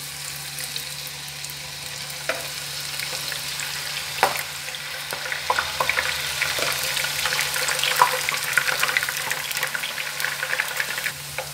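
Thin slices of green banana deep-frying in hot oil in a pan: a dense sizzle with sharp crackles and pops that grows louder a few seconds in as more slices go in. The vigorous bubbling is the sign of freshly added slices still giving off their moisture early in the frying.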